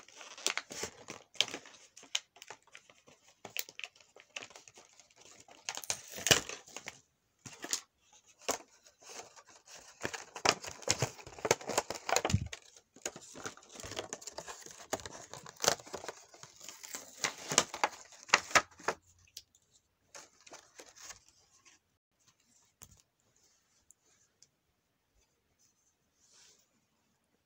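Clear plastic blister packaging crinkling and tearing as it is pulled apart and the toy pieces are taken out: a dense run of crackles that thins to a few faint rustles over the last several seconds.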